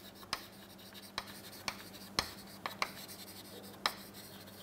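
Chalk writing on a chalkboard: a run of irregular sharp taps and short scratches as the chalk strikes and drags across the board, over a faint steady hum.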